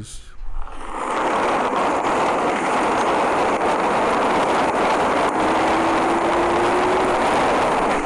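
Cellphone field recording made in rain: a steady loud hiss of rain noise. Under it, from about five to seven seconds in, is one faint low hoot rising slightly in pitch, the song of a Banded Ground Cuckoo.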